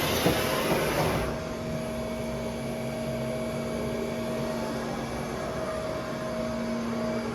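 Wagner CNC machining centre running. A strong hiss for about the first second gives way to a steady machine hum with a constant whine.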